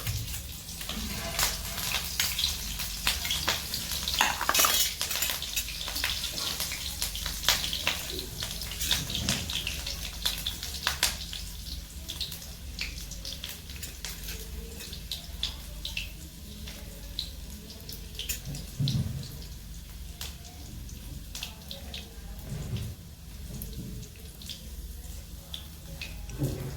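Chopped garlic, chilli and ginger sizzling in hot oil in a pan, with a spoon clicking and scraping against the pan. The sizzle is strongest in the first half and then settles down.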